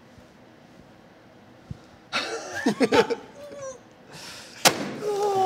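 A hand slamming down flat on a brown paper bag on a table, one sharp smack near the end that crushes the bag. It comes between voices exclaiming and is followed by a long falling voiced 'ooh'.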